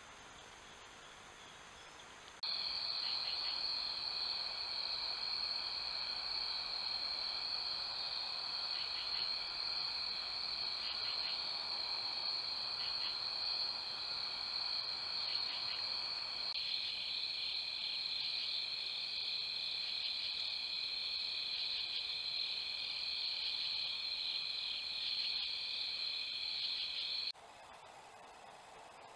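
A steady night chorus of crickets and other insects trilling together at several high pitches. It starts abruptly after a couple of seconds of faint hiss, changes texture about halfway through, and cuts off abruptly shortly before the end.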